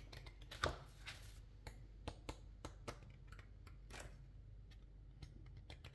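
Loose sheets of paper handled and shuffled: faint, irregular rustles and small ticks, the loudest about two thirds of a second in.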